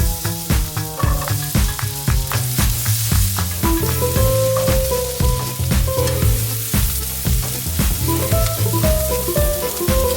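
Food sizzling in a hot pan, a steady hiss, under background music with a melody and a steady beat.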